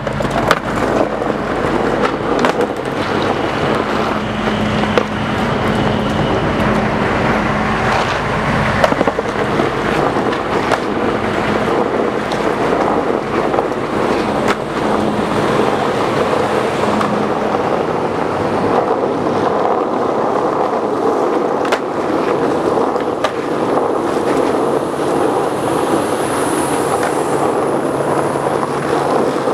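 Skateboard wheels rolling on wet asphalt, a steady rumble and hiss, with now and then a sharp clack of the board as tricks are popped and landed.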